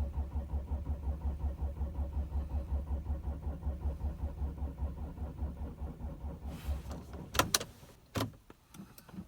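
Starter motor cranking the Audi A6's 2.7 TDI V6 diesel in an even, rapid rhythm of compression pulses without the engine catching: a cold no-start. The cranking stops about seven seconds in, and a few sharp clicks follow.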